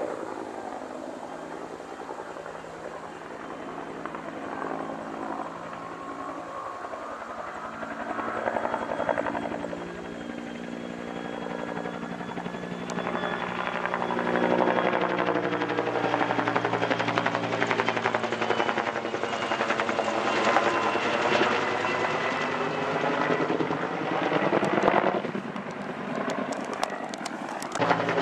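Helicopter flying over with its rotor thudding. It grows louder through the first half and stays loud until a brief dip a couple of seconds before the end.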